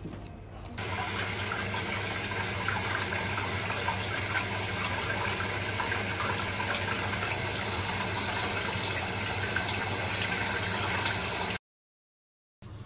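Steady rushing, splashing water, starting about a second in and cutting off abruptly near the end.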